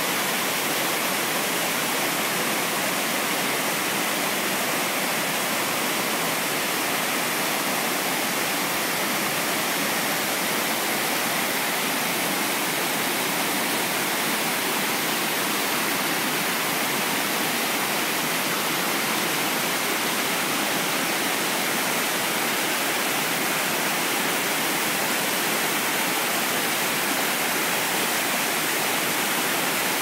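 Waterfall's falling water rushing steadily as an even, unbroken hiss, with no let-up or change.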